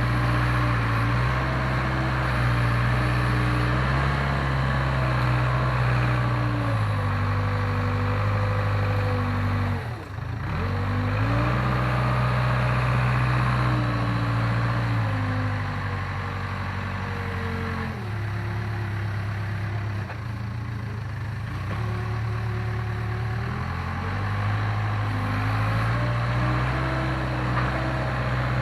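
Case 580K backhoe's diesel engine working, its speed rising and falling repeatedly as the machine pushes dirt, with a short sharp dip and recovery about ten seconds in.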